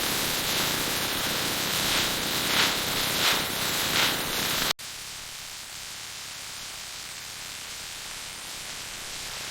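Steady static-like hiss with a few brief swells in the first half; about five seconds in it cuts off abruptly to a quieter, duller hiss.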